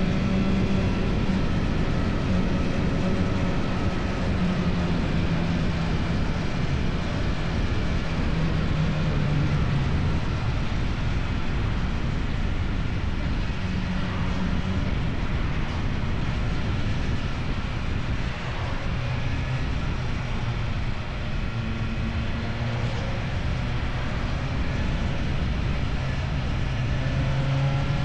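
Motorcycle engine running through an Akrapovic aftermarket exhaust while riding, a steady low drone whose pitch sags through the middle and climbs again near the end as the throttle changes, over constant rushing wind and road noise.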